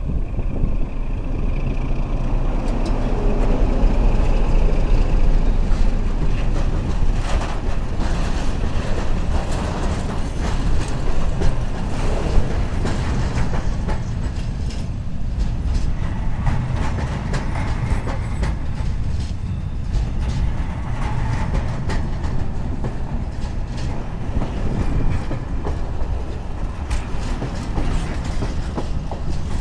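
Freight train passing close by: the ST43 diesel-electric locomotive's engine rumbles past loudest in the first several seconds, then covered wagons and tank wagons roll by, their wheels clattering and clicking over the rail joints.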